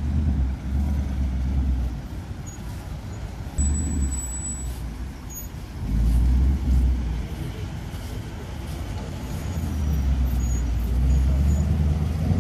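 Ford Mustang Bullitt's V8 exhaust rumbling low as the car moves slowly, swelling in several short surges of throttle.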